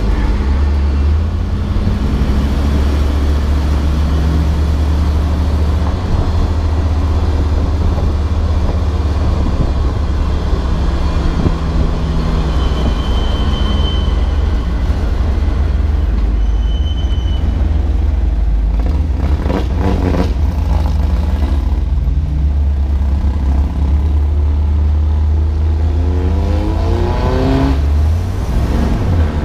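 Race car's engine running hard on track, heard onboard with road and wind noise. The engine note stays steady for long stretches, then the revs fall and climb again about two-thirds of the way through and once more near the end, as with braking and gear changes.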